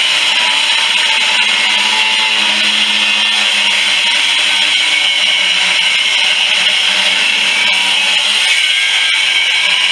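Electric grinder running continuously under load: a loud, steady grinding hiss with a low motor hum underneath.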